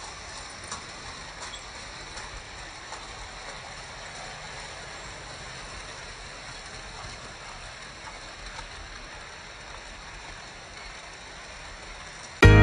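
Vintage Märklin model trains running on metal M-track: a steady rattling rumble with a few faint clicks. Music starts suddenly right at the end.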